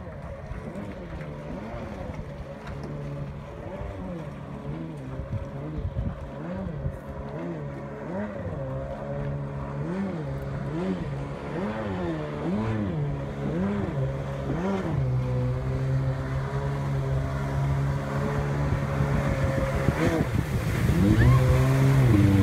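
Stand-up jet ski engine revving up and down about once a second, then holding a steady pitch. It dips once near the end and then runs loudest as the craft comes closer.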